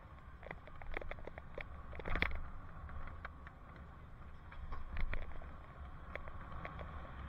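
Bicycle riding over city pavement heard from a helmet camera: a low steady rumble of wind and road with frequent small clicks and rattles, louder rattles about two seconds in and again about five seconds in.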